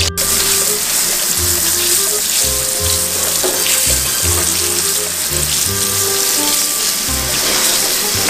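Background music with a repeating bass line over a steady hiss that fills the high end, with a brief dropout right at the start.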